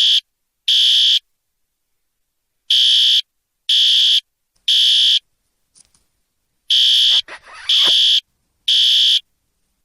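Fire alarm sounding: high-pitched electronic beeps in repeating groups of three, each group followed by a pause of about a second and a half.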